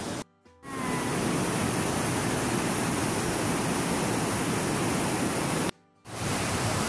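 Steady rush of a fast stream tumbling over rocks where it flows out of a cave, cutting out briefly twice, about a third of a second in and near the end.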